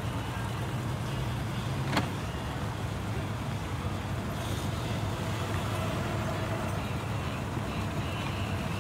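Boat engine idling: a steady low rumble, with one sharp crack about two seconds in.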